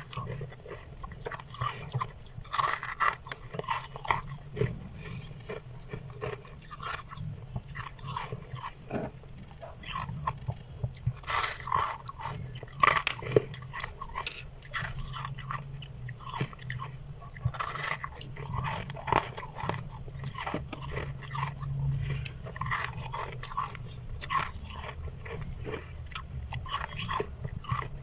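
Freezer frost being bitten and chewed close to the microphone: irregular crisp crunches, several a second, some much louder than others, over a steady low hum.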